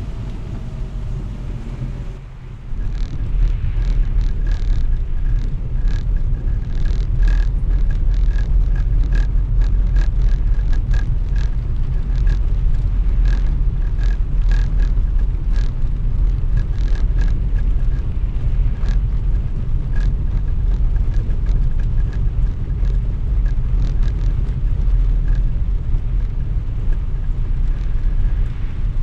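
Car driving over wet cobblestones in the rain: a steady low rumble of tyres and road noise that gets louder about two and a half seconds in, with irregular sharp ticks throughout.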